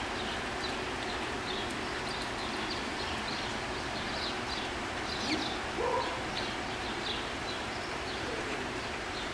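Steady rush of a waterfall, with small birds chirping repeatedly over it and a brief voice about halfway through.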